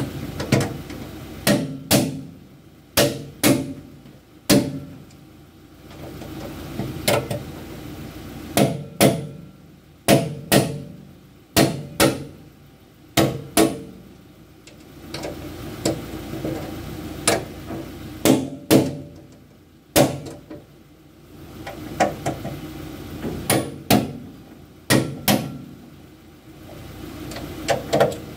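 Hammer striking the steel parts of a combine harvester header, metal on metal, during a finger-guard repair. The blows come in irregular runs of two to five with short pauses between them, and each one rings briefly.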